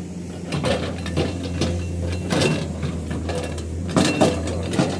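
Construction-site machinery: a diesel engine running low and steady, with irregular metallic clanks and knocks, the loudest about four seconds in.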